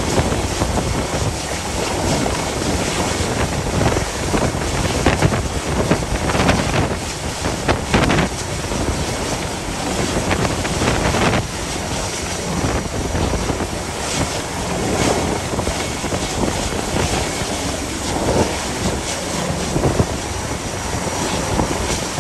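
Gale-force wind buffeting the microphone in irregular gusts, over the rushing of the sea.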